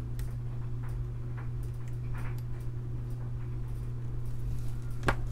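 Faint scattered ticks and light scrapes from a hobby blade working the cut end of a flat ribbon cable, with one sharper click about five seconds in. A steady low hum runs underneath.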